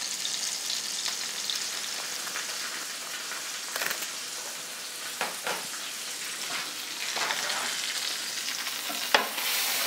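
Stuffed pork loin browning in butter and oil in a skillet: the fat sizzles with a steady hiss, broken by a few sharp pops and spatters, the loudest near the end.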